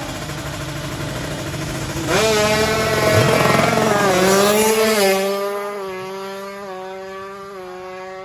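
Two-stroke sport motorcycle engine, a Kawasaki Ninja tuned to 155 cc, held at revs and then launched hard at a drag race about two seconds in. It stays loud for about three seconds, then fades as it pulls away, its pitch dropping in steps at each upshift.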